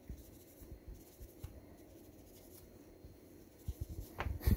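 A terry-cloth towel rubbing against a metal-can power transistor, a soft, steady scrubbing, as a rub test of a suspected counterfeit part. A few knocks come near the end, the loudest just before it ends.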